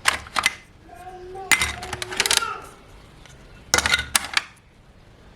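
Small hard plastic toy pieces clicking and clattering as they are handled and set down, in three quick clusters of sharp clicks with short pauses between.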